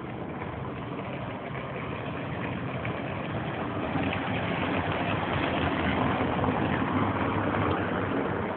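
Motor vehicle engines running, growing gradually louder as the vehicles draw nearer.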